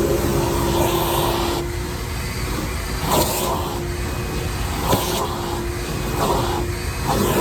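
Shop vac running with a steady motor hum and a rushing suction hiss that rises and falls as the nozzle moves over surfaces. Two sharp clicks, about three and five seconds in, as debris rattles up the hose or the nozzle knocks.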